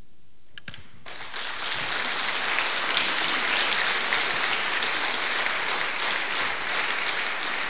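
Audience applauding. The clapping starts about a second in, swells quickly, then holds steady.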